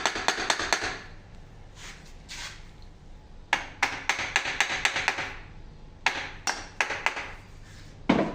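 Metal-on-metal tapping from hand tools working on an electric power steering rack, in quick runs of sharp clicks with a short ring after each. The runs come in three bursts, and a single heavier knock comes near the end.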